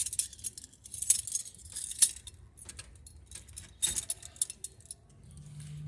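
A key ring jangling in the ignition as the key is turned, then near the end a steady low electric hum starts: the electric fuel pump switching on and priming at key-on.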